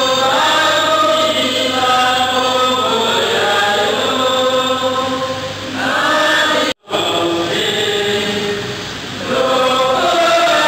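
A congregation singing a chant-like hymn together. The sound cuts out abruptly for a split second about seven seconds in.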